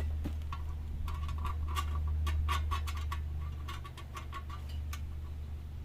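Small metallic clicks of a hand ratchet turning a nut onto the exhaust heat shield bracket, quick and irregular, thickest in the middle and thinning out near the end, over a steady low hum.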